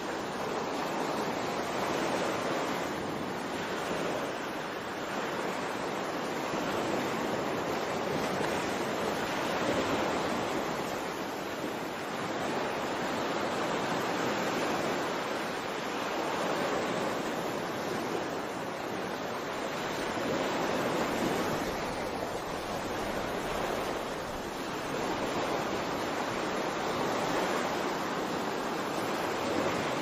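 Ocean waves washing in: a steady rushing hiss that swells and eases every few seconds.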